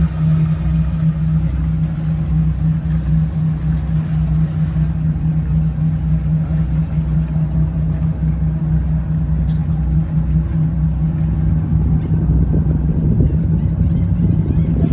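A motor yacht's inboard engines run at a steady cruise, giving a constant low drone and hum. A rougher rushing sound joins about twelve seconds in.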